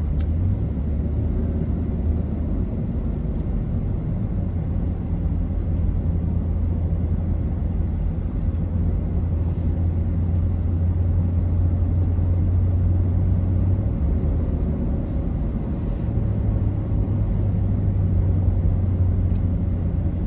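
Steady road rumble of a moving car heard from inside the cabin: low engine and tyre drone, shifting slightly in pitch a few times as the speed changes.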